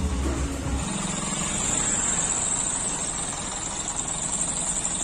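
Bus engine idling with a steady, even running noise. Background music cuts off about a second in.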